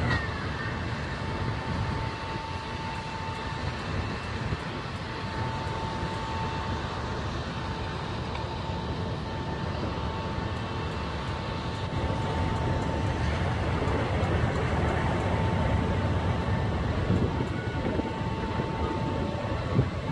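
Traffic on a flooded city road: a steady rush of vehicles and water, with a thin steady high tone running through most of it. It grows a little louder about twelve seconds in.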